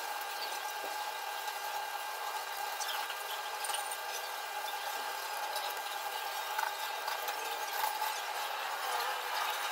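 Scissors cutting through corrugated cardboard: scattered small snips and crunches over a steady background hum.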